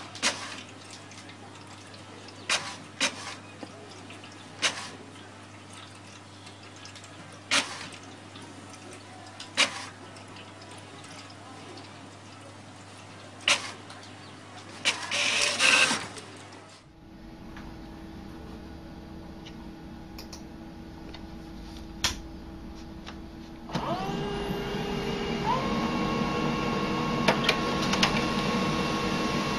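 Printers at work: first one clicking now and then over a steady hum while pages feed out, with a louder mechanical stretch about halfway through. Near the end a grey laser multifunction printer starts up with a rising whine that settles into a steady running tone.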